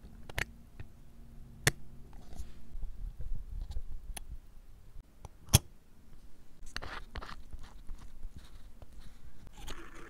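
Small clicks and light handling noises from watch parts being fitted and handled by hand, with three sharp clicks standing out and a short scraping rustle about seven seconds in.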